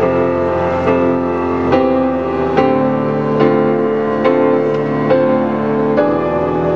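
Grand piano and acoustic guitar playing a slow, gentle ballad together, with a new chord or note struck about every second.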